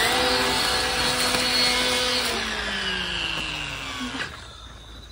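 Makita 18V cordless split-motor brush cutter with a tipped-saw blade spinning through grass: a steady motor whine over a whirring hiss. About two seconds in, the whine falls in pitch and the sound fades, going quiet near the end.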